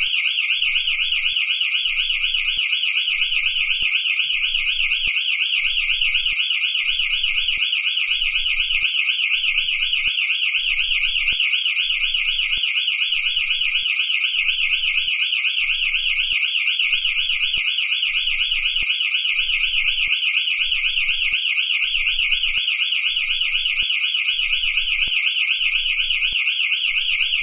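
Electronic burglar alarm siren of a house or business sounding continuously, a loud high-pitched tone warbling rapidly and evenly without pause.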